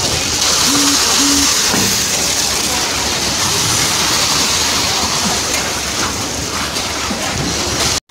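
Steady rushing, splashing noise of wet concrete discharging from a concrete pump's hose onto a floor slab, with the pump running. Two brief low tones sound about a second in.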